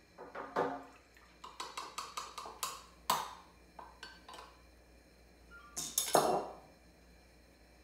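Kitchen clatter: a measuring spoon and a soy sauce bottle tapping and clinking against a glass measuring cup and the countertop, in a quick string of small knocks with the loudest about six seconds in.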